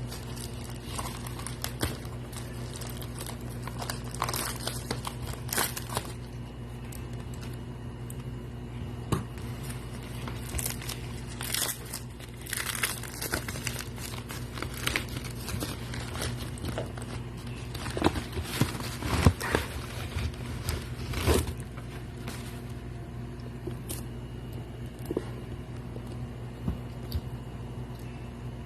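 Portable-monitor packaging being opened and handled: plastic and paper crinkling, some tearing, and scattered clicks and knocks, with a few sharper knocks about two-thirds of the way through, over a steady low hum.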